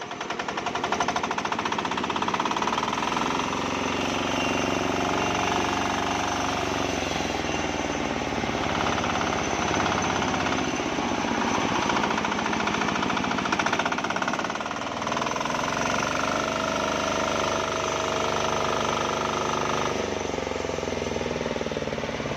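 Matsumoto diesel engine running steadily with a rapid knocking beat, driving a homemade sawmill; its tone shifts a few times as it goes.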